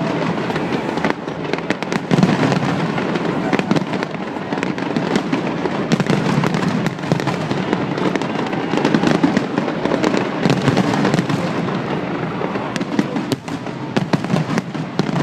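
Fireworks display: a continuous, rapid barrage of bangs and crackling.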